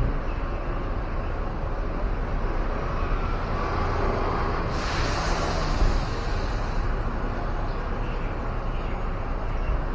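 Steady outdoor traffic noise with a low rumble, and a hissing rush lasting about two seconds in the middle.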